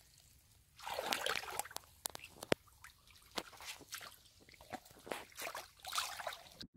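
Hands and legs working in shallow muddy water: faint, irregular squelches, splashes and drips that cut off suddenly near the end.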